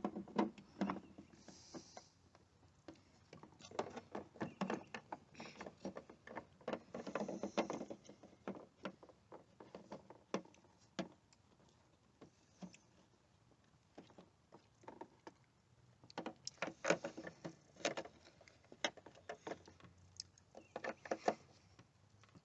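Irregular clusters of sharp clicks, taps and light rattles, as of hard parts being handled, with quieter gaps between them.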